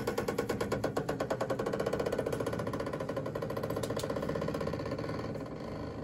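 Motorized flue vent damper on a Weil-McLain gas steam boiler, its small geared motor running as it drives the damper open: a steady hum with a rapid, even ticking that dies down about five seconds in.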